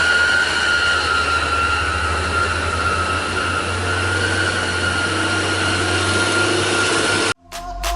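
Heavy diesel truck engine labouring under load on a steep climb: a low pulsing rumble with a steady high whine over it. It cuts off suddenly about seven seconds in.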